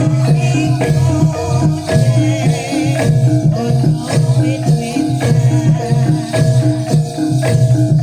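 Live Javanese gamelan music for a jaranan dance: pitched percussion strokes in a fast, steady, repeating pattern.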